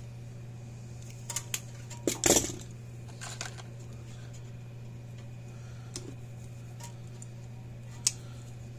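Small tools and parts being handled on a workbench: a few scattered clicks and clatters, the loudest cluster about two seconds in, over a steady low hum.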